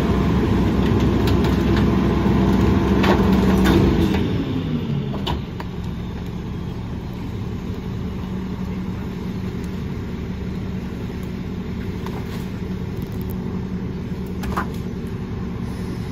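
Rear-loader garbage truck's diesel engine running raised during the packing cycle, then winding down to a steady idle about four to five seconds in. A few sharp cracks and knocks of tree branches come through, one about a second from the end.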